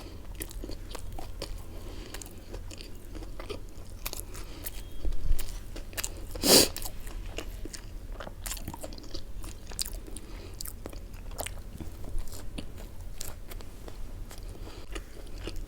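Close-miked eating: chewing and crunching mouthfuls of food, with many small crunchy clicks. A louder sharp crunch comes about six and a half seconds in.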